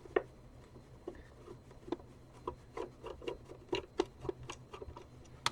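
Faint, irregular small clicks, taps and scrapes of plastic as the stiff battery door on a handheld vacuum's housing is worked loose by hand.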